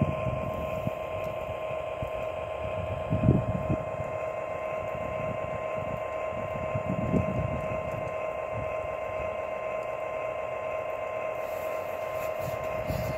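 O gauge model train locomotives running with a steady electric whine and hum, broken by brief low rumbles about three and seven seconds in.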